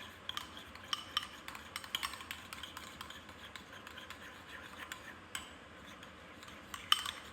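A utensil stirring ketchup and mayonnaise together in a bowl, with irregular clinks and scrapes against the bowl and one sharper clink near the end.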